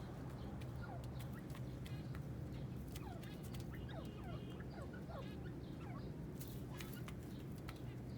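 Teetar (francolins) making many short, falling chirps and soft calls, scattered irregularly, over a steady low hum.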